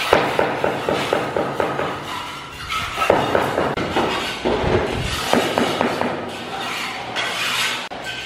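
Quick runs of tapping knocks on the floor tiles as they are bedded in mortar: a fast even run of about eight knocks a second for the first two seconds, then shorter runs of knocks.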